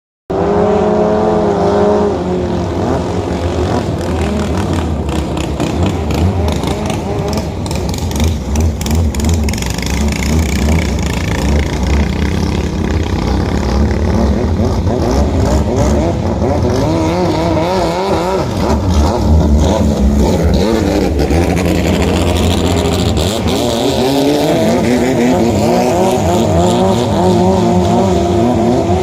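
Racing longtail boat engine running hard at high revs, its pitch wavering up and down, with the revs climbing again about three-quarters of the way through.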